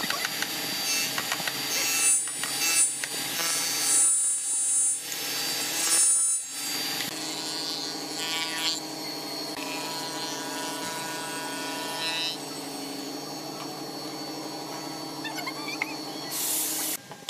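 Spindle moulder (wood shaper) running with a steady machine whine, its cutter biting into wood in several louder passes during the first seven seconds, then running on steadily.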